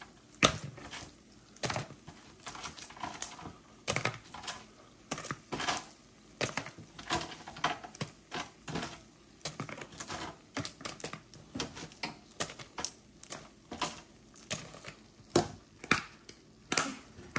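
Kitchen tongs lifting cooked chicken wings off a wire cooling rack and dropping them into a plastic mixing bowl: a run of irregular light clicks and taps, about one or two a second.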